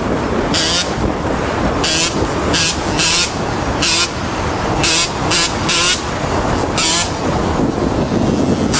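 Motor vehicle engine and road noise at road speed, steady throughout. Around ten short bursts of high hiss break in at irregular intervals.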